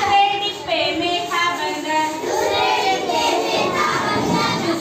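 A group of children singing together, their voices holding notes in a sung chant.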